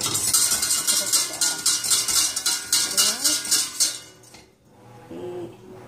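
Wire balloon whisk beating a thin milk mixture in a stainless steel saucepan, the wires rattling against the pot in quick, even strokes about five or six a second. The whisking stops about four seconds in.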